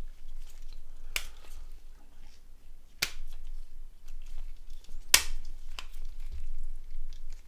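Three sharp plastic snaps about two seconds apart, the last one the loudest, with small handling clicks between them: the parts of a Nokia 7210's plastic body shell being clicked into place.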